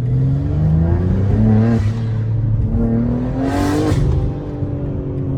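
Car engine accelerating hard: its pitch climbs, drops at an upshift about two seconds in, climbs again, then eases down steadily.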